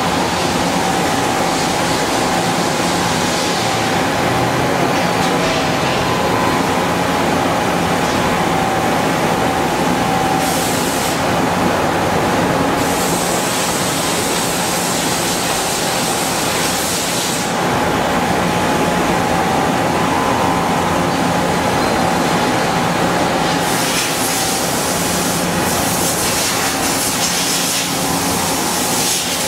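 Mazak 18MS Mark II CNC turning and milling centre running a machining cycle: coolant spraying inside the enclosure over a steady machine hum with a constant whine. The hiss of the spray eases twice for a few seconds.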